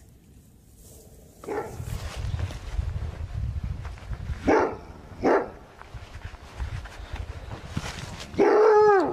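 Coyote barking: two short barks just under a second apart, then a longer bark whose pitch rises and falls near the end, over a low rumble.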